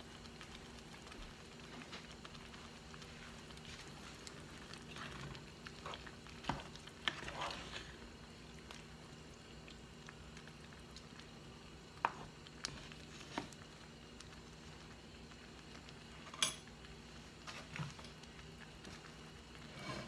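A spoon stirring a pot of gumbo, with soft scraping and scattered knocks of the spoon against the pot, the sharpest about two-thirds of the way through, over a low steady hum.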